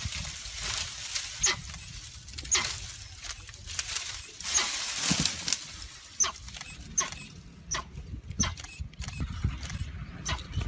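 Branches and leaves rustling as a tiger moves through a tree and drops to the ground, with short high chirps every second or so.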